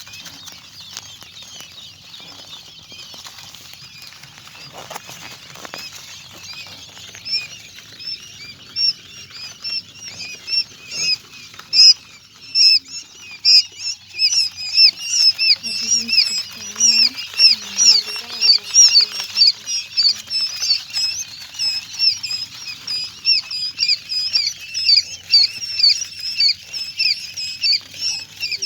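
Newly hatched quail chicks peeping in a brooder: many short, high chirps overlapping at several a second, faint at first and growing louder and busier after a few seconds.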